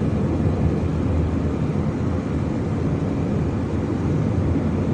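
Steady road and engine noise inside a moving car's cabin: an even low rumble with no sudden sounds.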